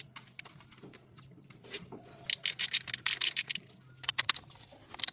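Quick rubbing strokes on a hard surface, a few a second, coming in a run in the second half.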